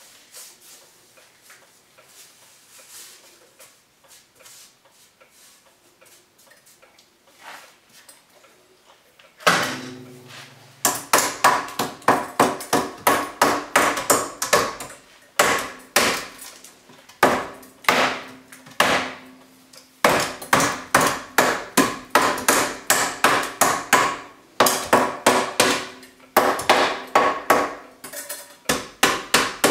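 Faint handling noises at first, then, about nine seconds in, a hammer striking the black sheet-metal stove pipe set into the wall: quick runs of blows, several a second, broken by short pauses, the thin metal ringing with each strike.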